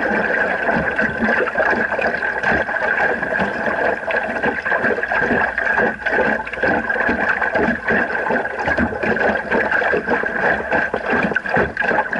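A small sailing dinghy under way: wind noise on the camera microphone and water splashing irregularly against the hull, with a steady high tone running through it.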